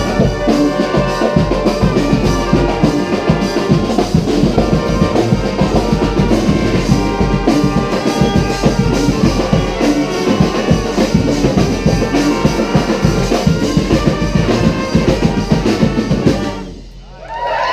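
Brass street band playing trumpets, trombones and drums over a steady beat. The tune stops abruptly about a second before the end, leaving a brief lull.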